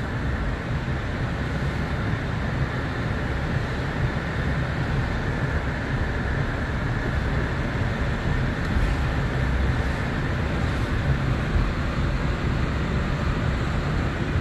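Steady engine and road rumble heard inside the cab of a 2017 Toyota Tacoma TRD Off Road while it drives slowly.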